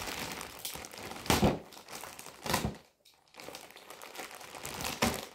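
Packaging crinkling and rustling as it is pulled and torn open by hand, without scissors, with two louder rustles about one and a half and two and a half seconds in and a short pause near the three-second mark.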